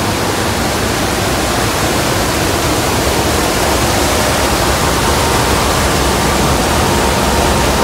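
Raw river water churning in a water treatment plant's rapid mix chamber, stirred by a central mixer as activated carbon and alum are mixed in: a loud, steady rushing noise.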